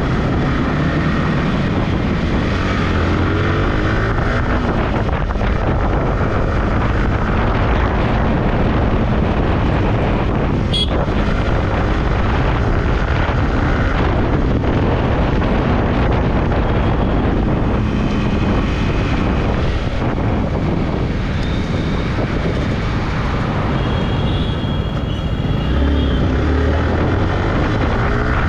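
Yamaha R15 motorcycle's single-cylinder engine running as the bike is ridden through traffic, its pitch rising and falling with the throttle, under steady wind noise on the microphone. A single sharp click about eleven seconds in.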